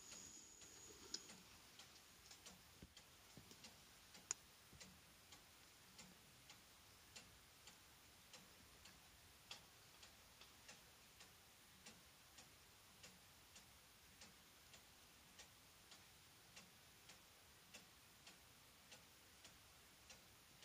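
Faint, steady ticking of a clock at an even pace, a little under two ticks a second, with one sharper click about four seconds in.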